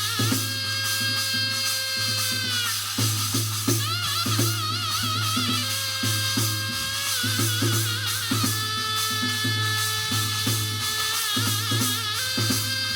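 Korean shamanic ritual (gut) music: drum strokes in a steady rhythm and a shaken rattle, under a melody of long held notes that break into wavering, trilled ornaments every few seconds.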